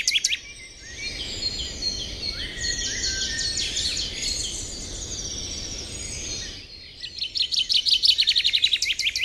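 Birds chirping and calling, with fast trills of rapidly repeated high notes at the start and again near the end, and scattered chirps in between. A steady low background noise runs under the middle part.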